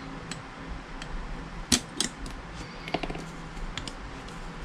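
Scattered clicks and taps of small plastic and metal parts as the two halves of an airsoft Beretta M9's plastic lower frame are pressed together over its springs and hammer parts, one sharper click about halfway in.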